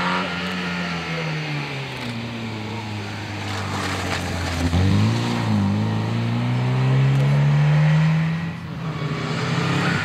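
Engine of a classic Škoda saloon driving past on a rally stage: revs sink at first, a gear change about five seconds in, then a steady climb in revs as it accelerates away, easing off shortly before the end.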